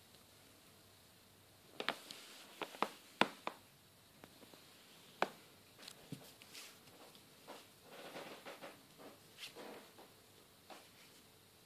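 Cardboard tube of an 8-shot Roman candle being handled and turned over on a tiled floor: a quick run of sharp clicks and taps about two seconds in, a single tap a few seconds later, then softer scraping and rustling.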